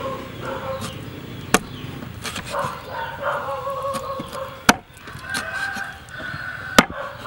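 Meat cleaver chopping through a whole eel onto a wooden cutting board: three sharp chops, a couple of seconds apart.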